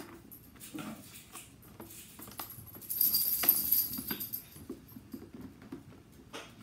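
Hands handling small plastic toy packaging: scattered light clicks and taps of hard plastic, and about three seconds in, a second or so of loud crinkling as a thin plastic wrapper is worked open.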